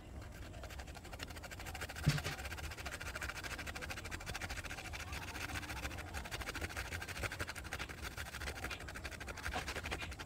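A piece of apple being grated on a small flat metal hand grater: faint, steady scratching of the fruit against the grater's teeth, with one small knock about two seconds in.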